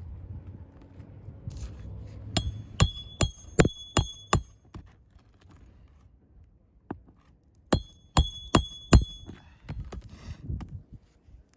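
Hammer driving roofing nails through an asphalt shingle: a run of about six sharp, ringing strikes, then a second run of about four, each at roughly two to three strikes a second.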